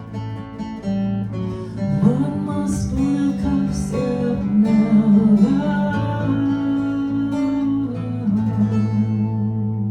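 Guitar strumming chords, with a wordless sung line gliding over it for a few seconds. It settles into held chords near the end.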